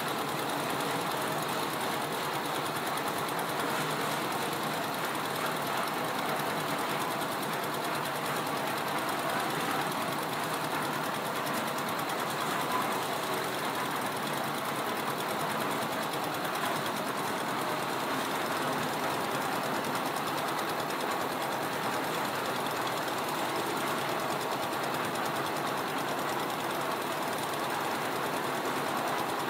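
Concrete mixer running steadily, its small stationary diesel engine turning the mixing drum at an even, unchanging pace.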